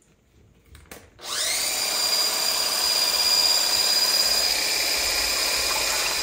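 Electric whisk whipping heavy cream: a couple of clicks, then about a second in the motor starts with a quickly rising whine and runs on steadily at high speed.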